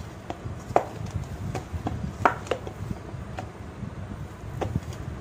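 Pizza dough being kneaded by hand in a stainless steel bowl: irregular knocks and thuds as the dough is pushed against the bowl and the bowl shifts, over a low rumble of handling.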